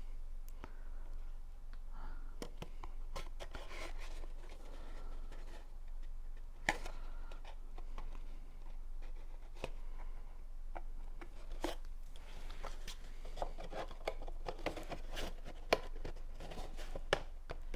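Thick cardstock being handled, folded and pressed together: soft paper rustling with scattered sharp clicks and taps, a few louder ones standing out.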